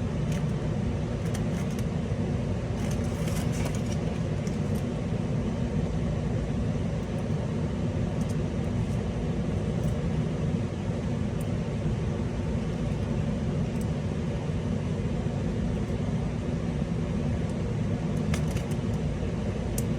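Steady low background hum with a few faint, light clicks of small screws and tools being handled, a handful in the first few seconds and a couple more near the end.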